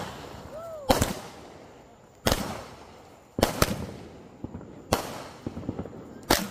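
A consumer aerial firework cake firing shells that burst overhead. Five loud bangs come a little over a second apart, each fading into a short rumble. Small crackles sound between the later bangs.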